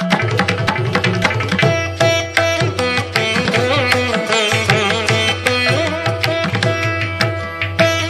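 Instrumental background music: fast hand-drum strokes under a plucked string melody with bending notes.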